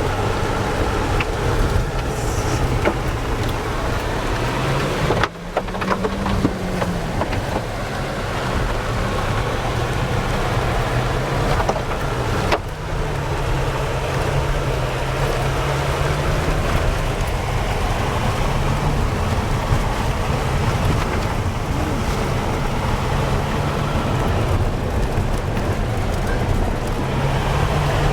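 Vehicle engine and road noise heard from inside a moving car: a steady low hum whose pitch briefly rises and falls about six seconds in.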